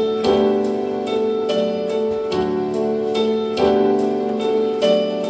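Instrumental break in a slow sung ballad: a keyboard plays sustained chords, with a new chord struck every second or so.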